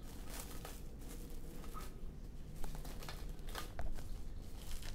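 Light handling noise: a few faint, irregular clicks and crinkles over a low steady hum.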